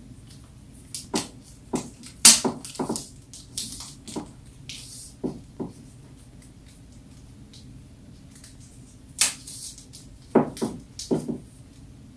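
Clicks, knocks and short rustles of a phone and its packaging being handled as it is unboxed, in two flurries, the first about a second in and the second about nine seconds in.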